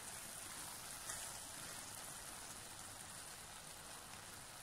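Faint, steady hiss of vermicelli cooking in a steel pan on the stove, its water almost dried off.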